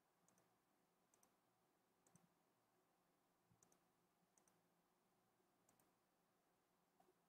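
Near silence, with several faint computer mouse clicks at irregular intervals, some in quick pairs.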